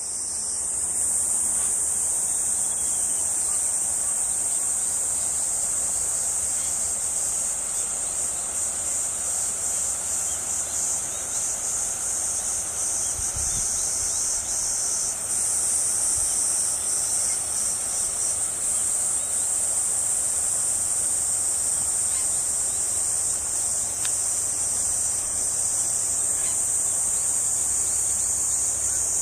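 Insect chorus: a steady, high-pitched shrill drone that weakens a little before the middle and comes back strongly.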